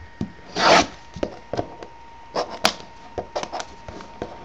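Cardboard trading-card hobby box being handled and opened: short rubbing swishes of cardboard, loudest just under a second in, with scattered small clicks and taps.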